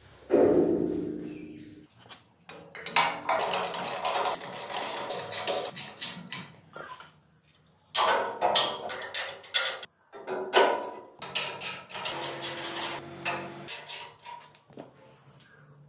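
Metal clanks and rattles of an engine and an exhaust muffler being handled and fitted into a steel-tube frame. A loud clang just after the start rings on briefly, followed by scattered knocks and clicks of metal on metal.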